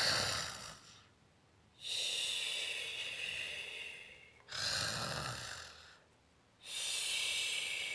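Cartoon-style snoring, done twice: each time a rasping breath in, then a long airy breath out with a thin whistle in it.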